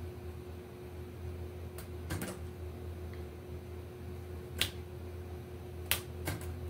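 A handful of sharp, separate clicks from the metal parts of a 1928 Royal Model P portable typewriter being handled, the two loudest a little over a second apart near the end. A steady low hum runs underneath.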